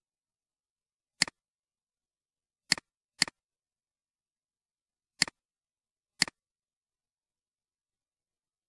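Five computer mouse clicks against silence, each a quick press-and-release pair; the second and third come close together, about half a second apart.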